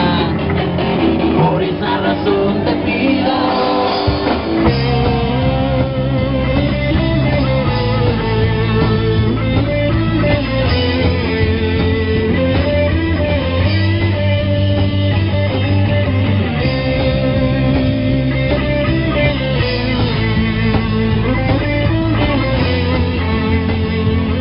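Live rock band playing a song on electric guitar and bass guitar.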